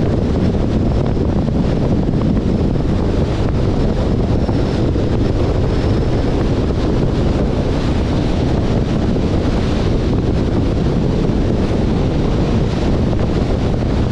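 Steady wind rush over the microphone of a moving car, with road noise beneath it and no letup.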